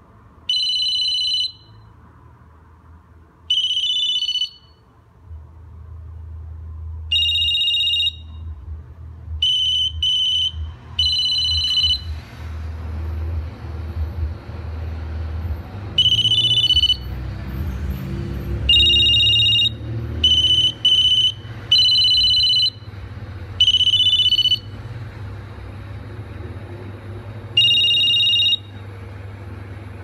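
Ericsson GH337 mobile phone playing its ring types in turn: about a dozen short bursts of a high, two-tone electronic trill, each around a second long, separated by gaps and coming closer together in the second half.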